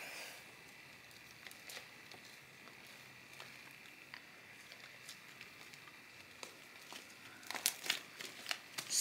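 Sticky homemade glue slime being kneaded, stretched and squeezed by hand: faint scattered clicks at first, then a run of sharp crackly pops near the end as the slime is squeezed.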